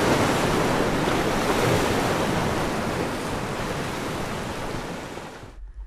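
A loud rushing whoosh of noise that sweeps with the logo animation. It eases off over the last seconds and cuts off suddenly near the end.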